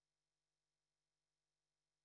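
Near silence: an empty, essentially soundless track with no audible sound.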